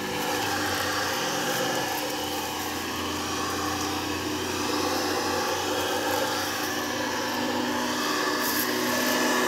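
SMQRT-360 electrostatic backpack sprayer running steadily while spraying: an even motor hum with a rushing hiss from the spray nozzle.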